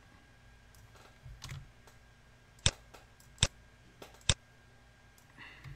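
Computer keyboard and mouse in use: three sharp clicks a little under a second apart about midway, with a few softer taps before, over a faint steady low hum.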